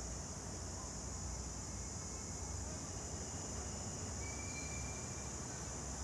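Steady outdoor background: an even, high-pitched hiss over a low rumble, with a faint short whistle-like tone a little after the middle.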